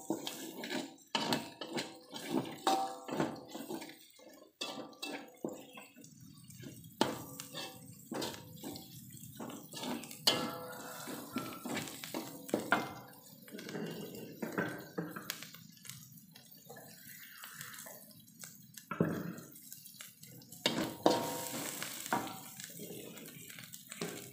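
Metal spatula scraping and knocking irregularly against a wok as chilies, galangal and bay leaves are stir-fried in hot oil.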